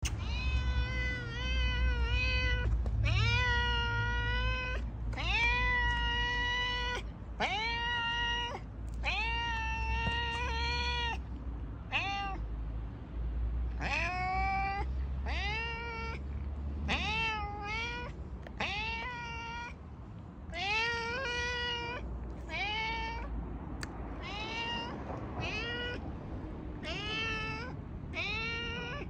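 A black-and-white tuxedo cat meowing loudly and over and over, about one meow a second. Each call rises at the start and then holds. The calls near the start are drawn out to a second or more, and the later ones are shorter.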